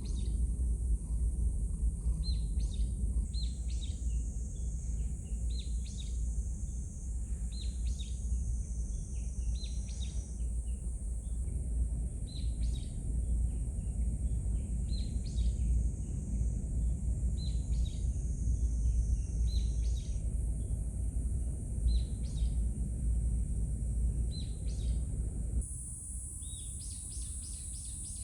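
Outdoor ambience: a bird gives a short chirp about every one to two seconds over a steady low rumble and a thin high hiss. Near the end the rumble drops away suddenly.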